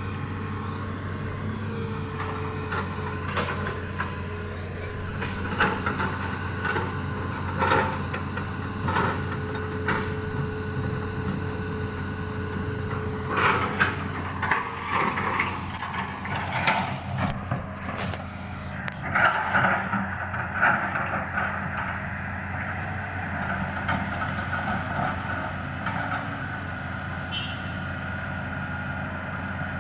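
Excavator's diesel engine running steadily, with a steady whine through the first half. Repeated knocks and clatters come through the middle, typical of rocks being scooped and dropped into a truck bed.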